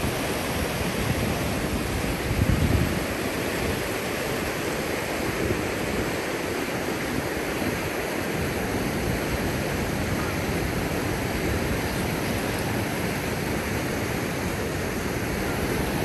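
Steady rushing noise with no tone in it, and a short low rumble about two and a half seconds in.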